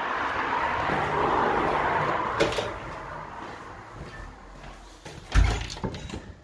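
An internal fire door being pushed open by its lever handle: a loud dull thump with latch clicks near the end, after a fading hiss in the first half.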